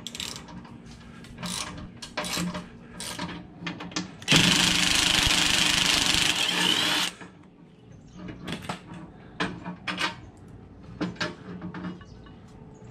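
A power tool running in one steady burst of about three seconds, starting about four seconds in, backing out a bolt. Scattered clicks and knocks of tools and parts being handled come before and after it.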